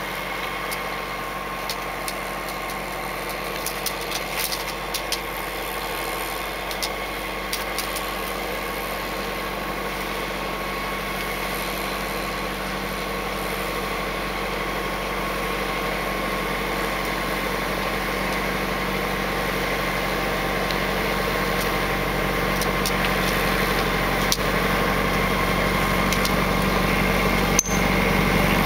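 White 4-155 tractor's diesel engine running steadily while its snowblower churns and throws snow, growing gradually louder as the tractor comes closer.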